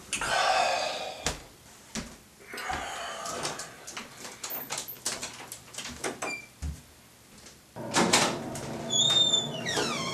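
A man's loud yawn, then a softer breathy sound, then footsteps and door clicks and knocks. Near the end a steady hum starts suddenly, with short squeaks over it.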